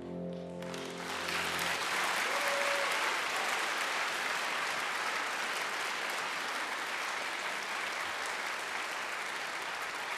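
Opera house audience applauding, breaking in less than a second in as the orchestra's last sustained low chord dies away.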